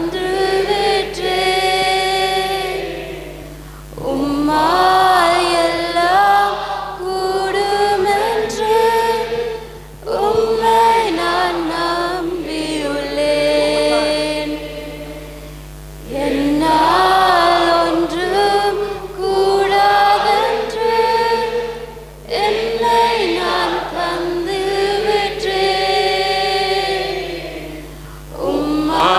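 A group of voices singing a worship song in long repeated phrases, with a short pause for breath about every six seconds.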